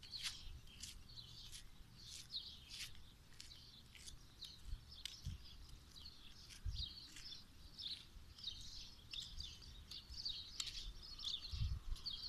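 Small birds chirping in quick, irregular bursts throughout, over a low rumble with a few brief low thumps.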